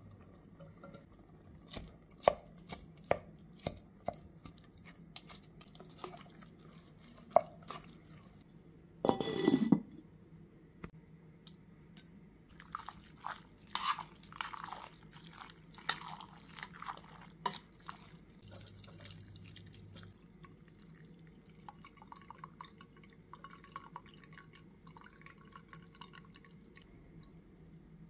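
Kitchen handling sounds: a run of sharp taps and clicks of utensils against cookware, a short loud rush about nine seconds in, then a spoon stirring and scraping through pasta in a metal pot, with fainter clinks near the end.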